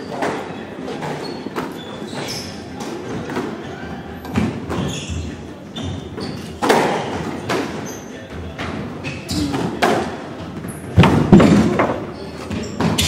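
Squash rally: repeated sharp racket strikes and the ball thudding off the walls, with players' footsteps on the wooden floor, echoing in the court. The loudest hits come about eleven seconds in.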